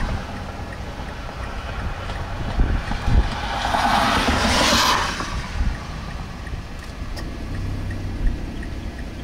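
Gusty wind rumbling on the microphone, with a vehicle passing on the road about three and a half seconds in, its tyre noise swelling and fading over about a second and a half.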